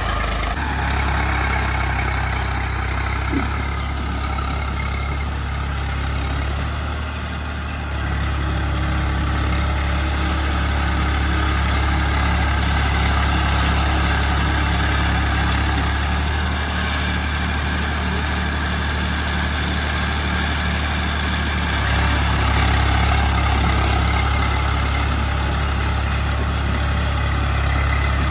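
Eicher tractor's diesel engine running steadily with a low, even engine note. The note steps up slightly in level about 8 seconds in and again about 22 seconds in.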